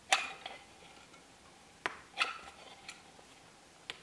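Caulking gun dispensing dabs of construction adhesive: short pushes and sharp clicks of the trigger and plunger, coming in two rounds about two seconds apart.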